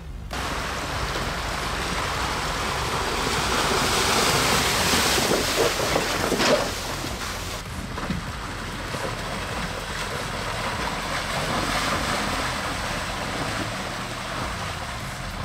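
Pickup trucks driving through snow and mud: a steady rushing noise of engine and tyres. It builds to its loudest about six seconds in, then eases to a somewhat lower rush.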